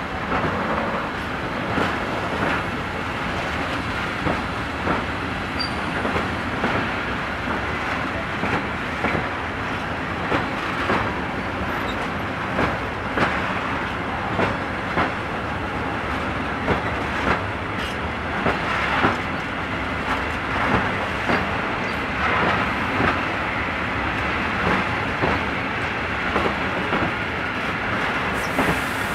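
A freight train of rail tank wagons rolling slowly past, steady wheel-on-rail rumble with regular clickety-clack knocks as the wheelsets cross rail joints.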